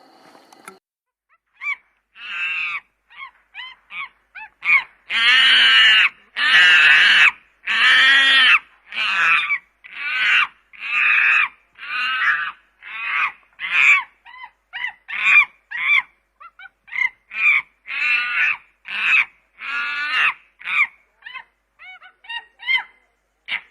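Chimpanzee calling in a long series of loud, pitched cries: a few short calls, then three long, loudest ones a few seconds in, followed by shorter calls about once a second that grow quicker and briefer near the end.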